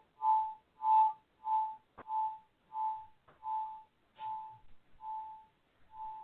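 Large quartz crystal singing pyramid ringing with one steady, pulsing tone that slowly fades, heard over a telephone line, with a single click about two seconds in.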